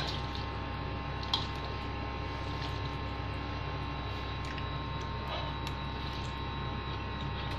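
Steady electrical hum with a few faint clicks, one a little sharper about a second in.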